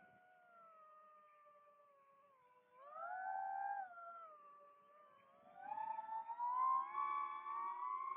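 FPV drone's motors whining, the pitch following the throttle. The steady whine climbs and grows louder briefly about three seconds in, then rises higher and louder again from about six seconds in.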